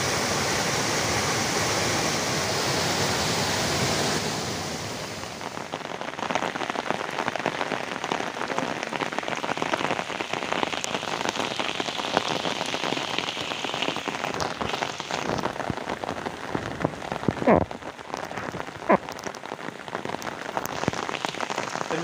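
A large monsoon waterfall in full spate rushes steadily for about four seconds. Then it gives way to heavy rain pattering on an umbrella, with two louder knocks a few seconds before the end.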